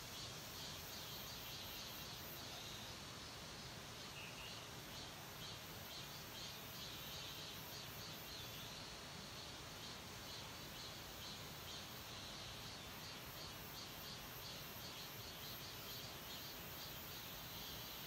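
Faint outdoor ambience of insects chirping in rapid, even pulses, with one short chirp about four seconds in.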